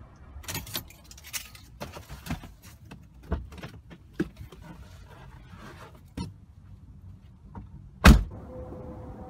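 Car keys jangling and small clicks and rustles as the key is pulled from the ignition and a cardboard pizza box is handled in the car, then one loud thump of a car door shutting about eight seconds in.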